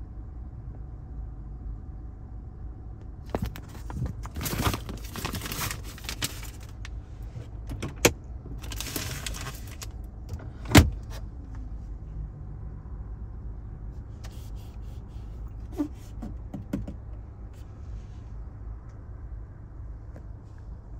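Stiff paper crinkling as a new car's window sticker is handled and folded, with sharp knocks from the glovebox about eight seconds in and again, louder, about eleven seconds in. A low steady hum from the car cabin runs underneath.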